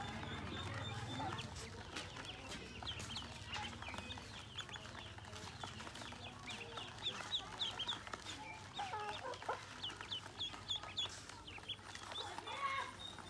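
A crowd of ducklings peeping: a stream of short, high chirps that gets busiest a little past halfway.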